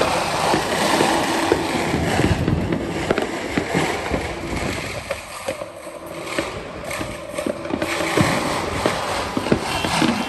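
Fireworks and firecrackers going off without a break: many irregular overlapping bangs and pops over a dense crackle.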